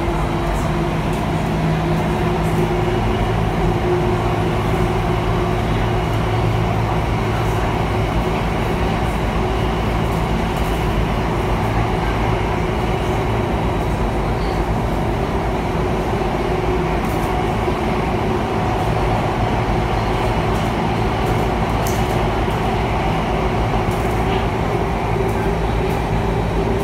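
Interior noise of an Alstom Metropolis C830 metro train running through a tunnel: a steady rumble with a constant motor hum.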